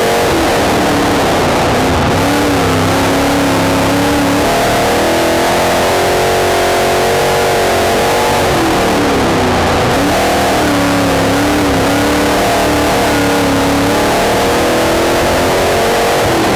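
Prostock dirt-track race car's engine running hard at racing speed, heard loud from inside the cockpit. Its pitch dips and climbs again about eight seconds in and once more near the end as the revs fall and rise.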